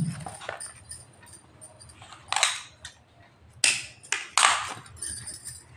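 Cut pieces of blouse fabric rustling as they are handled and moved on a table: a few short rustles, the loudest about two and a half and four and a half seconds in.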